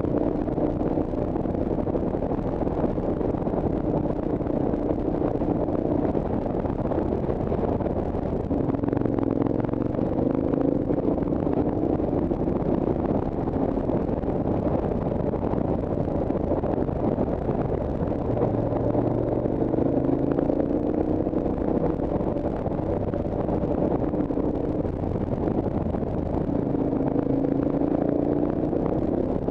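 Motorcycle engine running under steady wind and road noise from a camera mounted on the bike. Its pitch climbs a few times as the bike accelerates and holds steady in between.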